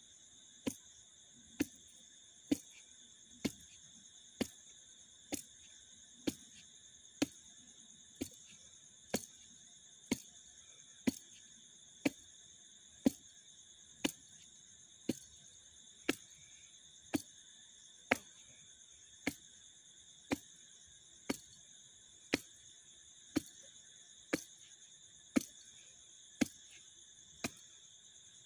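Steady high-pitched chirring of crickets, with a sharp click about once a second, evenly spaced, that stands out above it.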